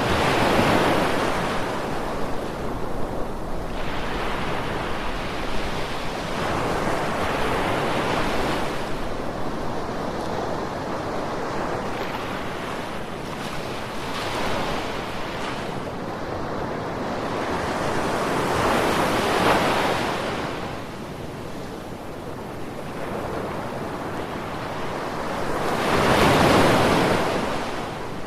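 Ocean waves breaking and washing up in a continuous rushing surf, swelling and fading about five times, roughly every five to seven seconds. The loudest surges come at the start and near the end.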